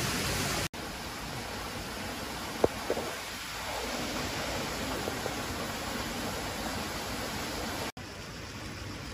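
Steady rushing of flowing river water, changing in level at two cuts between shots, with a couple of brief sharp clicks about two and a half to three seconds in.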